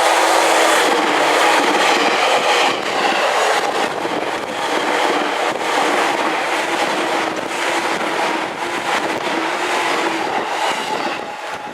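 Seibu 2000-series electric train passing close by, a loud rolling rush of wheels on rail with irregular clicks over the rail joints, easing off gradually toward the end. A Japanese level-crossing warning bell rings steadily underneath.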